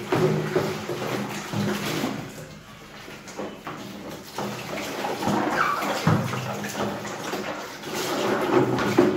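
Water splashing and sloshing as plastic basins are rinsed and emptied in a sink by hand, with occasional light knocks of plastic against plastic.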